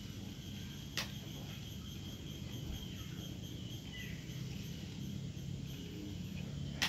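Plastic drinking straws handled, with two light clicks about a second in and near the end, over a faint steady hum and the high steady trill of insects.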